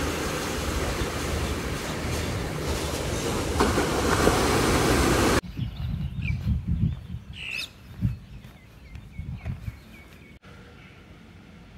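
Loud, steady noise of a large vehicle passing close, swelling about four seconds in, then cutting off abruptly about five seconds in. After that it is quiet, with small birds chirping now and then.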